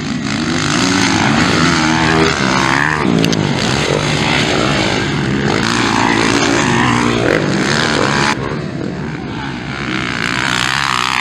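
Several motocross bikes' engines revving hard through a dirt-track corner, pitch rising and falling again and again as the riders open and close the throttle. The sound drops suddenly about eight seconds in.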